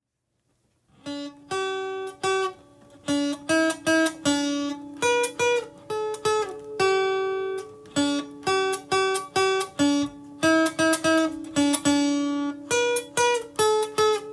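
Acoustic guitar music: plucked and strummed notes in a light, bouncy pattern, starting about a second in.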